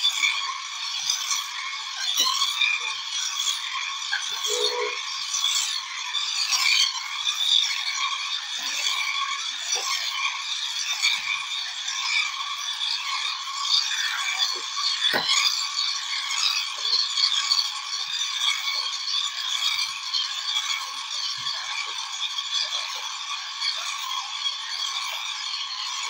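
Remote-control toy buggy running: its small electric motor and gearbox make a steady whirring, with a plastic rattle.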